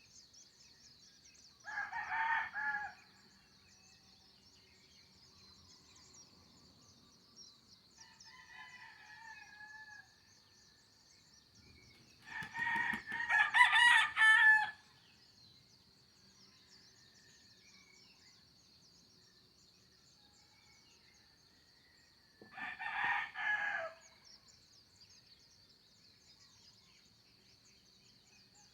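Rooster crowing three times, the middle crow the loudest and longest, with a softer call between, over a steady high-pitched drone.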